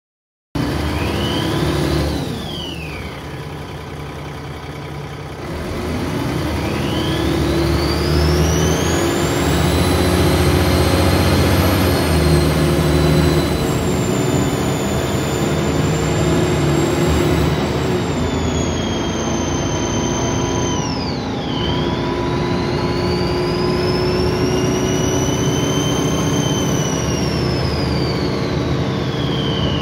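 Dennis Trident 2 double-decker bus's diesel engine running under load with a loud turbo whine. The high whine climbs steeply as the bus accelerates, holds high, then falls away, several times over.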